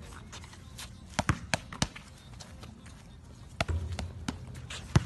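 A small dog scrambling after a basketball on a hard court: irregular sharp taps and clicks of paws and claws on the surface, with the ball bumping, and a louder knock a little before the end.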